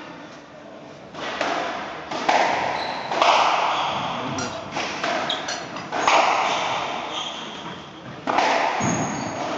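Squash rally: the ball is struck by the rackets and hits the court walls in a string of sharp smacks, one every second or two, each ringing on in the reverberant hall.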